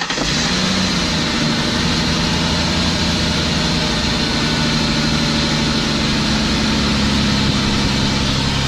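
Ford Taurus engine idling steadily just after starting: the car, which would not crank, now runs with its corroded battery terminals cleaned.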